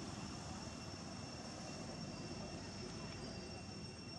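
Steady outdoor background noise: a low, even rumble with a thin, steady high-pitched whine held above it. No distinct calls or knocks stand out.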